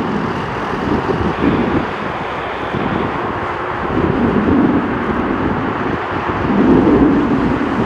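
Jet engines of a Boeing 787 airliner at takeoff thrust on its takeoff roll, a steady rush of jet noise, with wind on the microphone.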